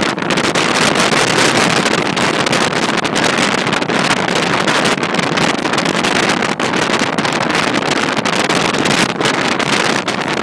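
Wind buffeting the microphone held out of a moving passenger train's window, over the train's steady running noise on the track. It is a loud, dense rush with brief irregular gusty dips.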